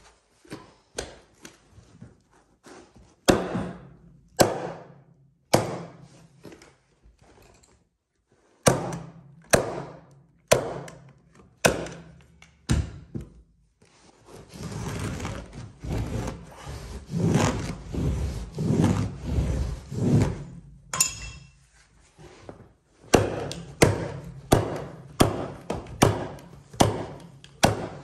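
Repeated sharp thunks on wooden stairs, about one a second in runs, as a carpet runner is fastened down, with a few seconds of rubbing noise in the middle.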